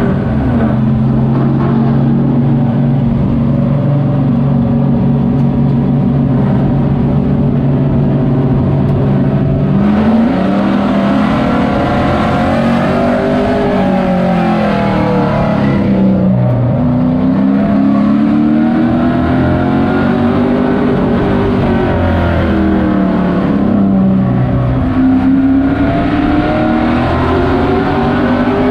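Race truck's engine heard from inside the cab, holding a steady pitch for about ten seconds, then revving up and falling back in long swells as it accelerates and lifts.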